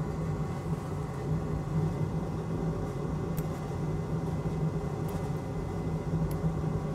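Steady low background hum, like a fan or ventilation running, with a few faint light ticks.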